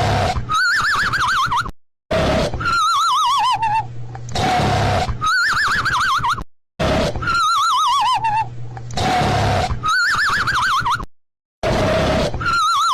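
Looped cartoon snoring sound effect: a low rumbling snore under a wavering whistle that falls, then a wavering whistle that rises. The cycle repeats about every four and a half seconds, with a brief cut to silence between loops.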